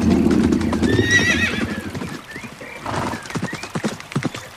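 Horse hooves clip-clopping in a steady run of beats, with a high, wavering whinny about a second in.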